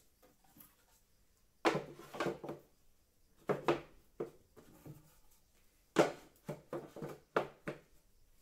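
8 mm plywood storage boxes knocking and clattering against each other and against a slotted wooden wall board as they are lifted out and set back into its notches. Three short bursts of wooden knocks, the loudest and longest about six seconds in.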